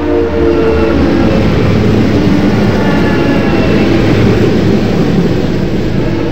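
Diesel freight train sound: a horn chord that stops about a second in, then a steady, heavy locomotive engine rumble.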